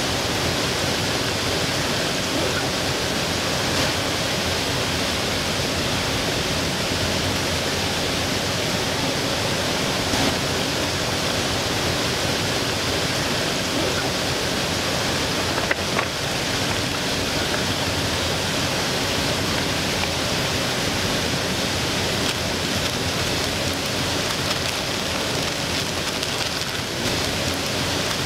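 Surf perch frying in melted butter in a pan over a gas camp stove: a steady sizzle with a few faint pops.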